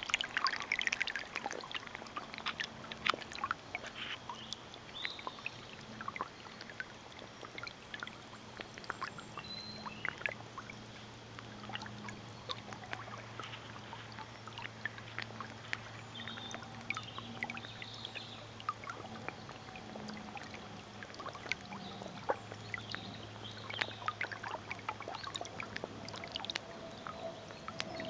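Water trickling and splashing at the surface, with many small clicks and a few short high calls, over a low steady hum that comes in about four seconds in.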